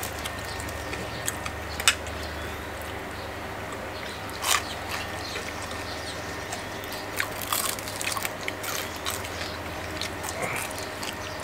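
Crispy fried salmon being torn, bitten and chewed: irregular sharp crunches and cracks, over a steady low hum.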